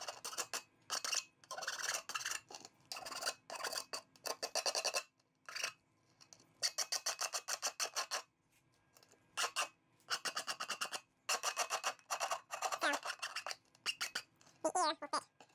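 A small hand tool scraping plastic shards off the edge of a freshly drilled hole in a plastic lamp globe, in short bursts of quick rasping strokes with brief pauses between them.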